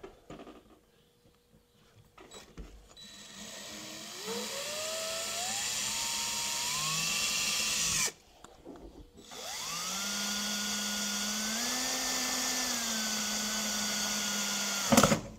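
Power drill with a 1/4-inch bit drilling a pilot hole through a pickup truck's bed liner and bed floor, in two runs. The first starts about four seconds in, its motor whine climbing in pitch, and stops at about eight seconds. The second spins up quickly about two seconds later, holds a steady whine, and stops just before the end.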